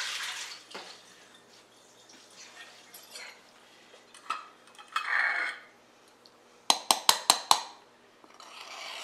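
Metal kitchen utensils clinking and scraping while a metal measuring cup scoops bread flour, with a quick run of about six sharp metallic clinks around seven seconds in.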